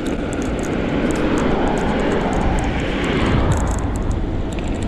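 Steady rushing noise of wind over the microphone and tyres on the road while riding an e-bike, with faint scattered ticks.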